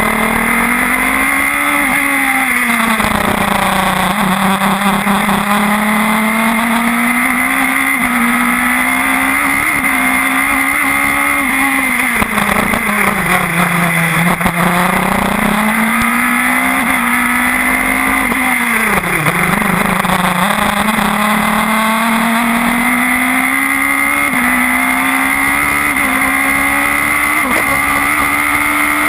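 Radical SR4 race car's engine under hard driving, its pitch climbing on the straights and falling as it slows for corners, with a deep dip near the middle and a sharp drop about two-thirds of the way through. It is heard from on board the car.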